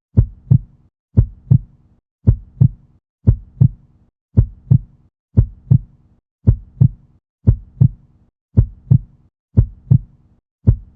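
Normal heart sounds: a steady lub-dub, the first and second heart sounds made as the heart valves close, in even pairs about once a second.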